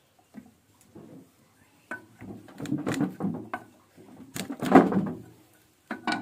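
A steel cleaver knocking and scraping on a wooden chopping board, with the loudest thuds about three-quarters of the way through as the flat of the blade is pressed down to crush garlic cloves.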